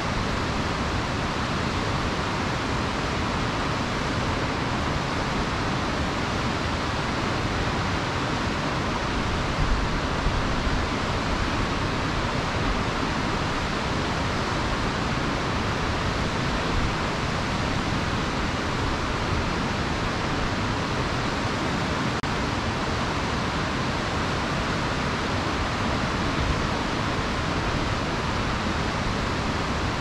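Mountain river flowing: a steady, unbroken rush of water.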